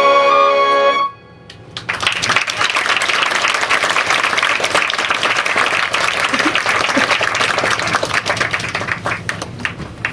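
Jazz big band's trumpets, trombones and saxophones holding a final chord that cuts off about a second in, followed by audience applause that thins out near the end.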